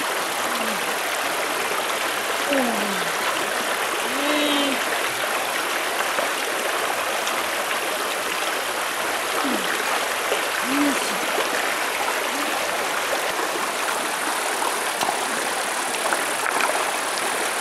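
Shallow stream rushing steadily over rocks close to the microphone.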